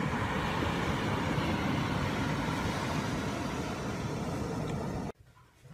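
Steady rushing beach noise, heaviest in the low end, that cuts off suddenly about five seconds in.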